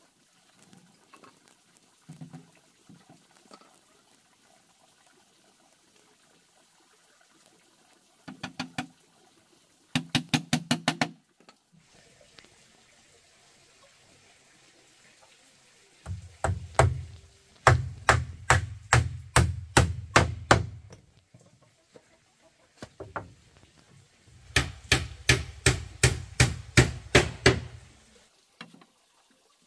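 Hammer driving nails into wooden boards: bursts of quick, evenly spaced blows, about three or four a second, with pauses between the bursts.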